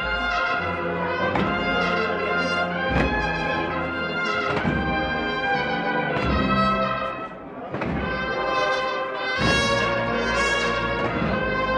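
A cornetas y tambores processional band, bugles playing a Holy Week march over snare and bass drums.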